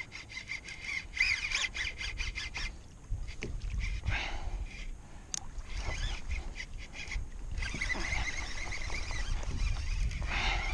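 Lever-drag conventional fishing reel's drag buzzing as a hooked fish pulls line off against it, in two spells: the first three seconds and the last three. Wind and water rumble underneath.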